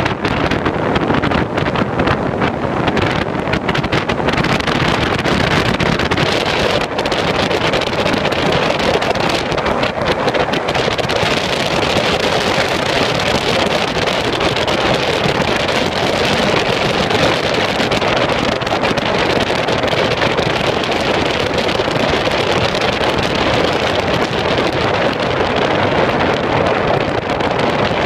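Loud, steady rush of wind buffeting the microphone as it moves at speed, with a few brief knocks in the first several seconds.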